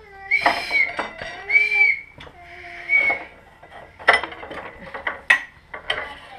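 Metal hand tools clinking and clicking on the front wheel and brake caliper of a Suzuki GSX-R race bike during a front tyre change, with sharp clicks about four and five seconds in. Over the first half, a wavering high whistling sound.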